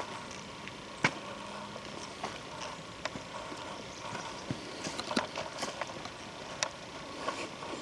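Footsteps through the forest floor litter, with irregular sharp cracks and clicks of twigs and sticks underfoot, a cluster of them near the end.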